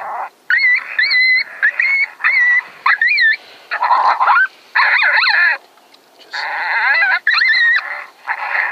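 Coyote vocalizations: a run of high, wavering yips and whines, one after another with short gaps, thickening into a tangle of several overlapping calls about five seconds in and again near the end.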